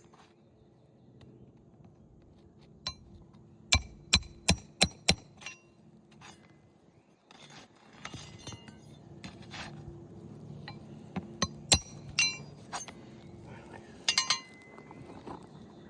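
Hammer blows with a metallic ring, as in driving roofing nails: a quick run of five strikes about four seconds in, scattered single strikes after, and a short cluster near the end.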